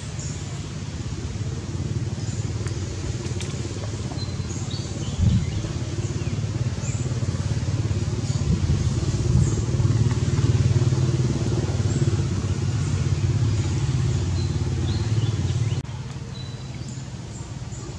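A steady low engine-like rumble, like a motorbike running nearby. It grows louder toward the middle and drops off suddenly near the end, with faint short high chirps above it.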